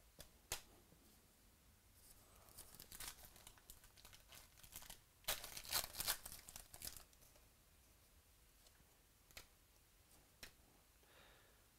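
Wrapper of a trading-card pack being crinkled and torn open, loudest about five to seven seconds in, with a few faint clicks of the cards being handled.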